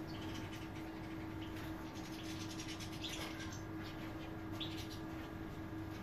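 European goldfinches giving scattered short, high twittering chirps, the clearest about halfway through, over a steady low hum.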